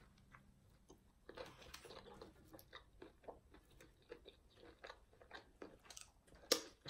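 A person chewing crunchy food close to the microphone: irregular soft crunches and mouth clicks, with one sharper crunch near the end.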